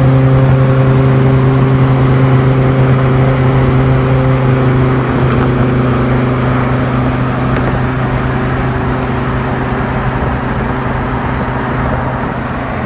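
Supercharged 8.0-litre V10 of a Gen2 Dodge Viper GTS cruising at low, steady engine speed: a loud, even drone that holds one pitch, softens a little about five seconds in and fades slowly as the car pulls ahead.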